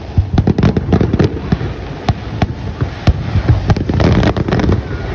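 Fireworks going off close by: a dense, irregular run of sharp bangs and crackles, several a second.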